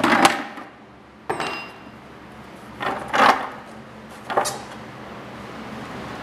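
Knocks and clanks of an Allen key and the metal belt cover of a drum floor sander being worked loose and handled, several separate hits, one with a brief metallic ring.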